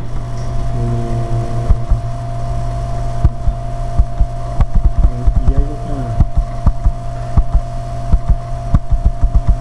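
Computer keys tapped in quick irregular strokes, several a second, while a terminal text file is scrolled, over a steady low electrical hum.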